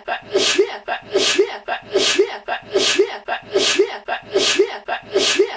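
One person's sneeze looped over and over, about once every 0.8 seconds, some seven times in a row. Each is a quick voiced 'ah-ah' followed by a sharp hissing 'choo'.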